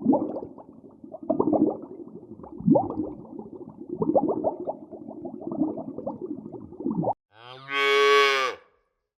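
Cattle: several seconds of low, uneven lowing and grunting calls, then, after an abrupt break, one loud cow moo about a second and a half long that drops in pitch at its end.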